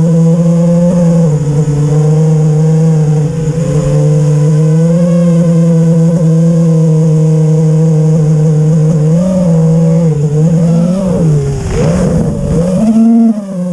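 FPV racing quadcopter's brushless motors (T-Motor F40 III, 2600 Kv) and propellers whining in flight: a steady hum whose pitch wavers with the throttle, swooping down and up sharply near the end before a short surge.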